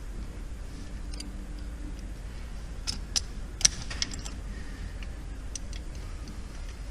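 Scattered light clicks and clinks of small metal parts and a hand tool being handled, loudest in a cluster about three to four seconds in, over a low steady hum.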